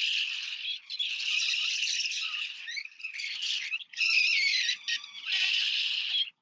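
Wind rushing over an action camera's microphone during a paraglider flight. It comes as a hissing rush with no low rumble, in gusts of about a second that start and stop with short breaks between.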